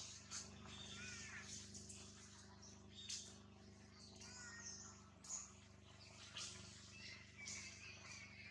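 Near silence with faint, scattered high chirps and squeaks, a thin high tone near the end, and a few soft clicks over a steady low hum.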